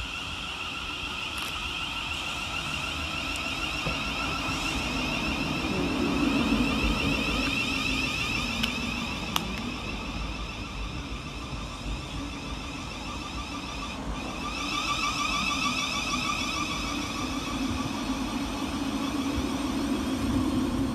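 Thameslink Class 700 Desiro City electric multiple unit moving through the station, its traction equipment giving a steady high-pitched whine over the low rumble of wheels on rail. The whine grows louder about two-thirds of the way through.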